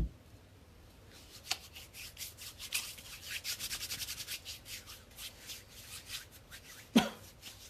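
Hands rubbing briskly together, working in hand sanitizer: a fast, dry, rasping rub lasting several seconds. A single sharp knock sounds near the end.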